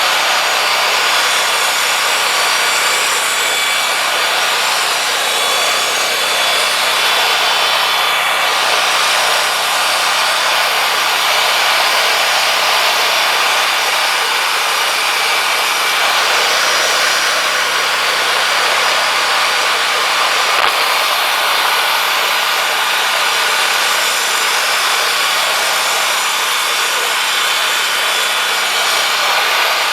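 Woodmizer LT40 band sawmill's blade cutting along a pine log: a steady, even sawing noise, with one brief tick about two-thirds of the way through.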